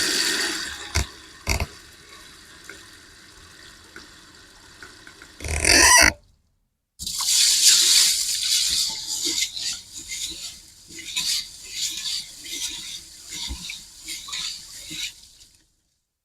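Water running from a tap and splashing in a kitchen sink, with a couple of sharp knocks and a brief break before the water runs on.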